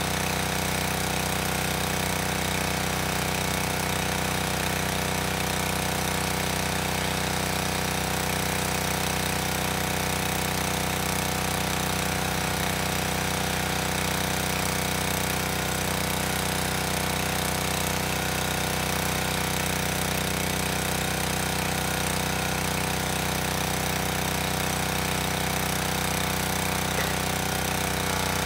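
Small gasoline engine of a towable log splitter running steadily at idle, its pitch unchanging.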